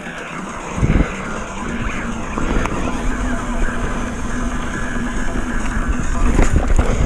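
Downhill mountain bike riding noise: tyres rumbling over the trail with wind on the microphone, and a heavy thump about a second in.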